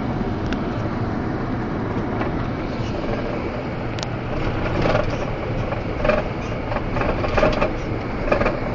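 Steady engine and road noise inside the cab of a 2011 Freightliner box truck under way on the highway. A run of short knocks and rattles comes through in the second half.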